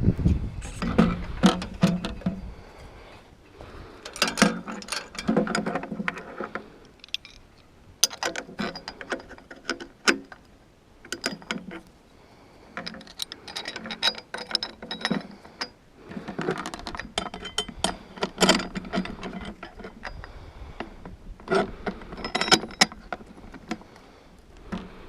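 Metal antenna-mounting clamp hardware clinking, clicking and rattling against a steel tower as it is fitted and tightened by hand. It comes in bursts of a second or two, about six of them, with short pauses between.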